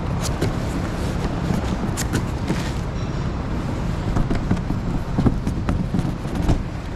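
Cardboard box being handled and opened, with irregular rustling, scraping and tapping of the flaps, as a large cylindrical air filter is lifted out against the cardboard. A steady low hum runs underneath.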